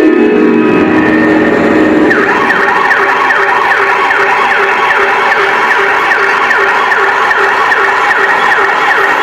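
A siren sound effect played back loud. It opens on a falling tone, then from about two seconds in becomes a fast yelp of short downward sweeps repeating about three times a second.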